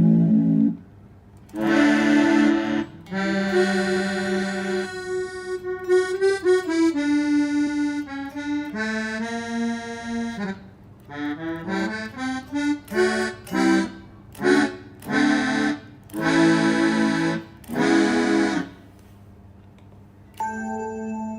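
Roland GR-20 guitar synthesizer playing a reedy, accordion-like patch: held notes and chords, a note sliding down partway through, then short repeated chord stabs, recorded through a phone's microphone.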